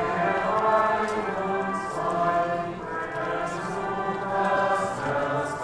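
A large crowd singing a hymn together, many voices holding slow notes.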